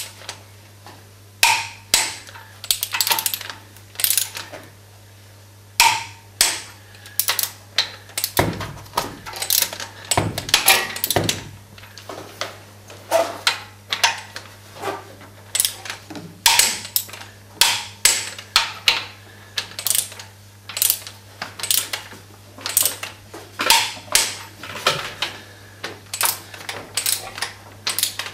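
Click-type torque wrench ratcheting and clicking as tractor cylinder head stretch bolts are tightened one after another to 10 kg·m. Each sharp click is the wrench's signal that the set torque is reached; the clicks come irregularly, about one or two a second.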